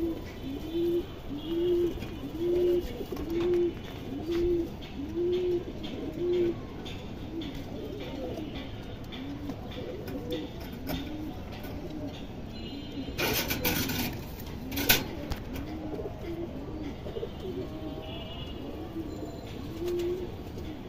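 Domestic pigeon cooing over and over, about one low coo a second, strongest in the first several seconds and softer after. A short run of sharp clicks comes a little past the middle.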